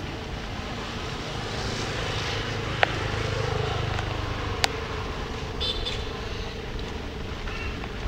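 Steady low rumble of road traffic that swells a few seconds in, with a couple of sharp clicks and a brief high squeak about six seconds in.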